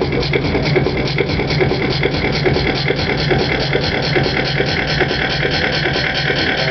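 Live electronic music played from a laptop and controllers over a PA: a dense, steady looped texture with a fast, even pulse.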